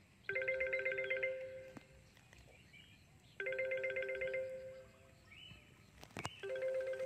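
A telephone ringing with a trilling electronic ring, about a second long, three times at intervals of about three seconds.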